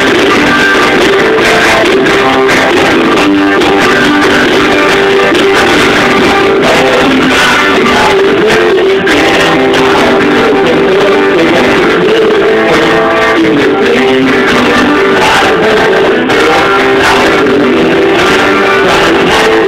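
Loud live instrumental music from a two-piece band: a dense wall of sustained tones that slowly drift and shift in pitch, with no singing.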